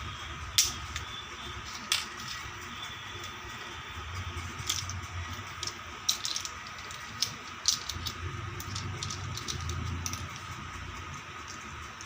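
Small plastic toy kitchen pieces being handled: scattered sharp clicks and taps, a few seconds apart, over a faint steady hum.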